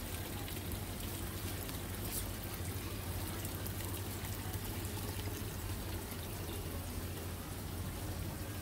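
Decorative water fountains running: water trickling and splashing steadily, over a low steady hum.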